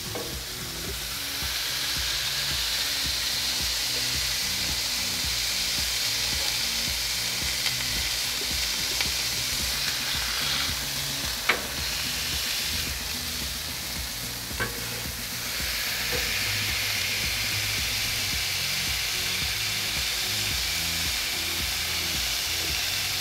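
Ground-beef slider patties sizzling on a hot Blackstone flat-top griddle as they are smashed flat with a small burger press. The sizzle grows louder about two seconds in, dips for a few seconds past the middle, then picks up again. A few sharp metal clicks of the press and spatula on the griddle come through, the loudest about eleven and a half seconds in.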